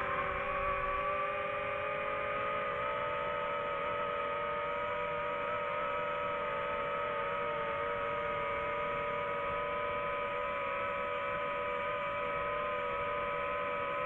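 DJI FPV quadcopter's electric motors and propellers holding a hover, a steady multi-note hum whose upper notes rise slightly in the first second and then stay level.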